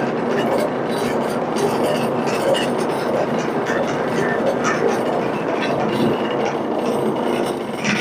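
Water running from a tap into a bucket, a steady rushing noise with a low hum underneath.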